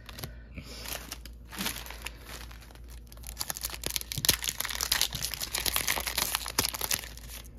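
Foil wrapper of a Pokémon card mini pack crinkling as it is handled and pulled open, with a few scattered crackles at first and dense crackling in the second half.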